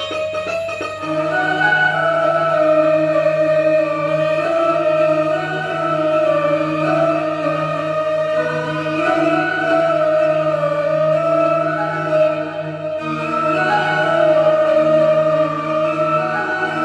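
Roland XPS-10 keyboard playing a slow, sustained melody over a steady low drone.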